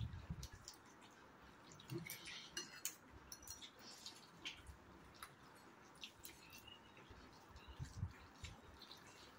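Faint eating sounds from several people at once: scattered light clicks of forks against noodle bowls and soft slurping of noodles, with a couple of low bumps near the start and near the end.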